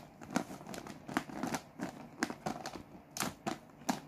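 Hard plastic toy animal figures clicking and clacking against each other as they are sorted through and picked up by hand, in irregular sharp taps.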